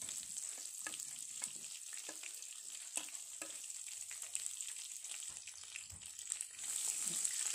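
Sliced onions and green chillies sizzling in hot oil with a mustard seed, cumin, garlic and curry leaf tempering, a steady hiss broken by scattered crackles and pops; the sizzle grows louder near the end.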